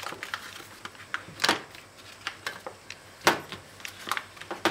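A knife cutting into a hard block of butter: irregular light clicks and scrapes, with two louder knocks about a second and a half in and a little past three seconds.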